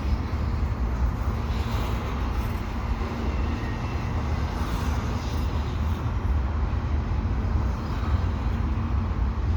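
Cars of a slow-moving freight train rolling past on the rails, a steady low rumble.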